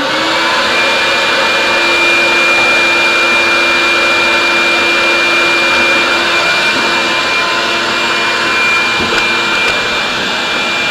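Vacuum cleaner switched on, its motor spinning up in a split second and then running loud and steady, a rushing noise with a high, even whine.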